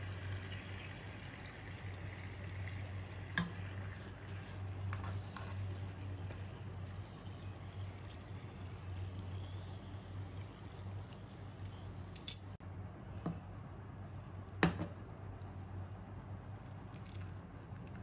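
Metal tongs handling sticky, sauce-glazed pork belly, moving it from a nonstick frying pan onto a ceramic plate: soft squishing of the meat, and a faint hiss from the hot sauce in the first few seconds. A few sharp clicks of the tongs against the plate and pan stand out, the loudest about twelve and fifteen seconds in, over a steady low hum.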